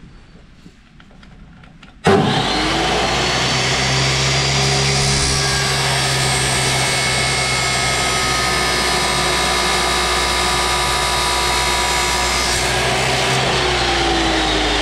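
Ryobi abrasive metal cut-off saw starts suddenly about two seconds in and runs at a steady high speed while its wheel cuts through metal, throwing sparks. Near the end its pitch starts to fall as it winds down.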